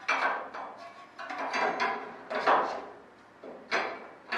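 A metal flap support tube knocking and scraping against the wing ribs as it is worked out through their holes: a run of irregular clanks, each ringing briefly.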